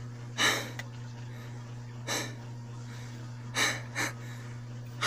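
A person breathing close to a phone microphone: several short, airy breaths a second or more apart, over a steady low hum.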